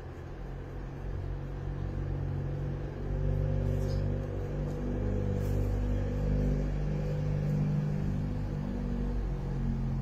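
A motor engine running, a steady low hum that grows louder about three seconds in.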